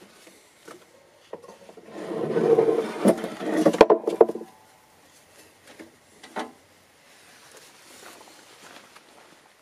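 Rummaging in a plywood storage drawer in a vehicle's cargo area: about two seconds in, scraping and rustling with a few sharp knocks as a black metal box is lifted out of the drawer, lasting about two and a half seconds. Afterwards only a few faint clicks.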